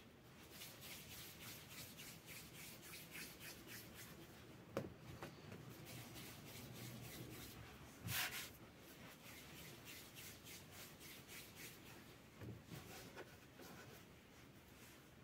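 Hands working soft yeast dough pieces on a floured wooden board, with many faint soft taps and rubs. There is a sharper knock about five seconds in and a louder one about eight seconds in.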